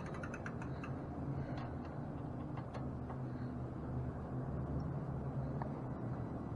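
A few faint, irregular ticks and clicks from hand work on an e-bike's rear mechanical disc brake, over a steady low hum.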